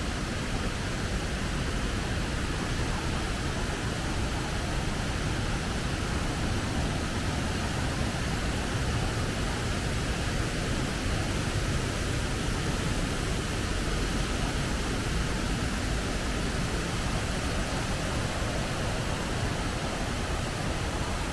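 Waterfall's falling water making a steady, unbroken rushing noise.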